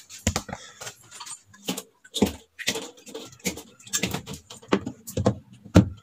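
Water flicked by hand onto the plastic lining of an empty refrigerator: a run of irregular short splashes and taps, about three a second, the loudest near the end.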